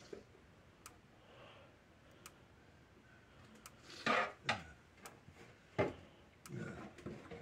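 Gallagher M150 fence energizer running on the bench, a faint click with each output pulse about every one and a half seconds. A few louder short sounds come in the second half.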